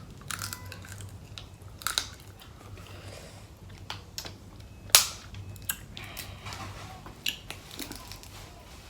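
Close-up eating sounds from a seafood meal: chewing, with scattered sharp cracks and crunches, the loudest about five seconds in.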